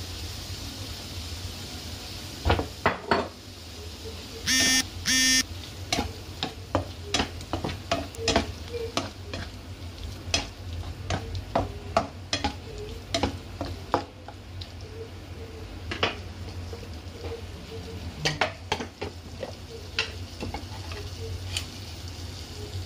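Diced chicken sizzling in oyster sauce in a frying pan while a utensil stirs it, with irregular clicks and scrapes against the pan. Two brief, louder ringing scrapes come about five seconds in.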